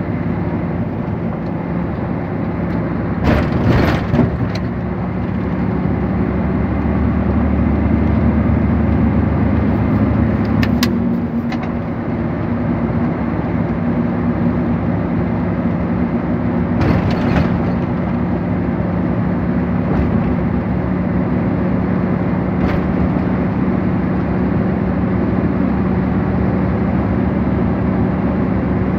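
Vehicle engine and road noise heard from inside the cab while driving at highway speed: a steady drone, with a slight change in engine pitch about eleven seconds in. A few brief knocks stand out, the loudest about three to four seconds in.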